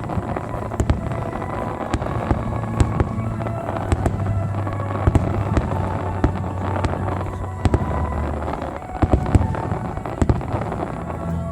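Aerial fireworks display: a continual run of bangs and crackles, many overlapping, with a steady low drone underneath.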